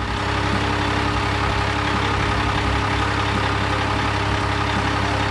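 Heavy transport truck engine running steadily, a low hum with a rushing hiss over it, as a cartoon sound effect.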